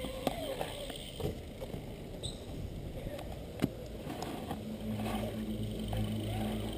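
BMX tyres rolling and carving on a concrete skatepark bowl, with scattered clicks and one sharp knock about halfway through. A steady low hum joins about two-thirds of the way in.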